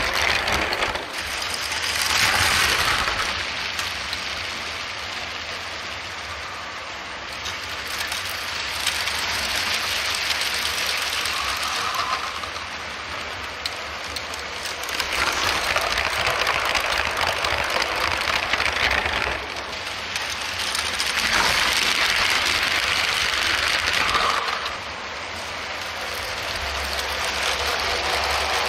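LEGO City model trains running on plastic LEGO track, their wheels and motors making a steady, noisy rattle. It grows louder three times as a train passes close by: about two seconds in, around the middle, and again a little later.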